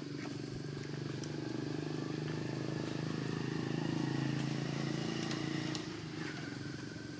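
A motor engine running steadily with a low hum. It grows louder towards the middle, then drops away about six seconds in.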